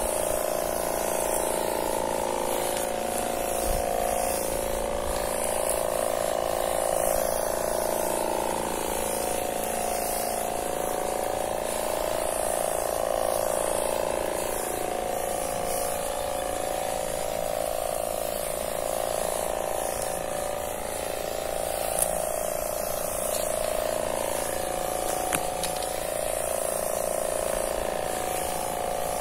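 Electric backpack sprayer's pump running continuously while herbicide sprays from the lance: a steady buzzing hum that wavers slightly in pitch, over a constant hiss.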